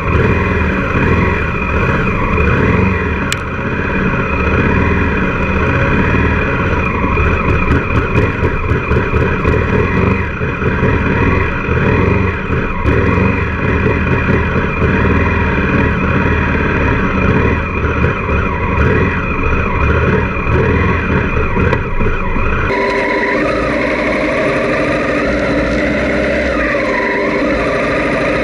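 Honda Africa Twin parallel-twin motorcycles riding off-road, engines running and revving unevenly as they churn through mud. A little over three-quarters of the way through, the sound switches suddenly to a steadier engine drone heard from on board a bike riding along a grassy track.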